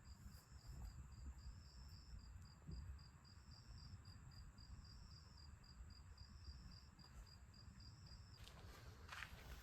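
Faint insects chirping at night: a steady high-pitched pulse about five times a second, with a longer trill about once a second, stopping shortly before the end.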